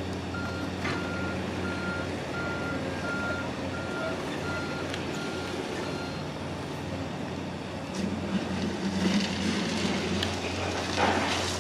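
Steady low engine drone, with a warning beeper giving about eight short even beeps, roughly one and a half a second, that stop about six seconds in. Near the end the engine noise swells into a louder rush with hiss.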